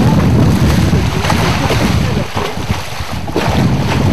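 Wind buffeting the microphone over the wash of the sea, with water splashing as a hooked halibut thrashes at the surface beside the boat's hull.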